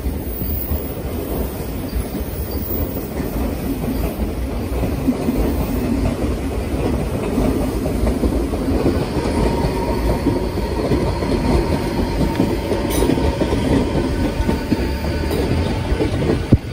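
Electric commuter train running on the track alongside, its wheels clattering over the rails. A faint high whine joins about halfway through.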